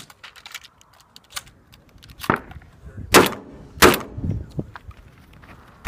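Shotgun firing: a softer bang a little over two seconds in, then two loud shots about two-thirds of a second apart, and another shot at the very end, with small clicks between.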